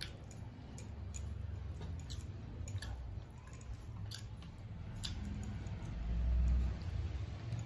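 Close-up eating sounds from people eating rice and curry with their hands: chewing and wet squishing as rice is mixed on steel plates, with scattered light clicks. A louder low rumble comes about six seconds in.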